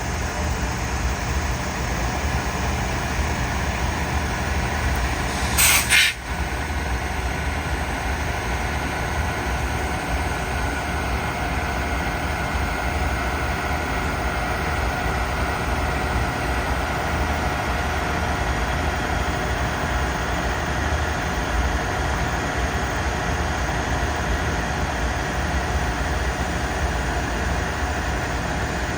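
Southbound SRT diesel passenger train running steadily at the station platform, a continuous drone. About six seconds in, a brief loud hiss cuts across it.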